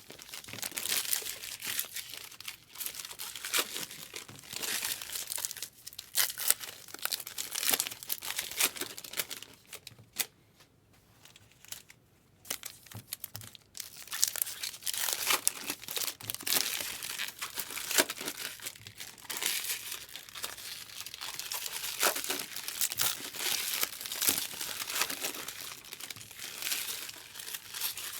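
Baseball card pack wrappers being torn open and crinkled, one after another, with a brief lull about ten seconds in.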